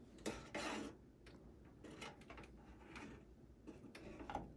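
Faint clicks and handling rustle of a SATA cable being plugged into a desktop PC's hard drive: a soft rustle just under a second in, then scattered small plastic ticks.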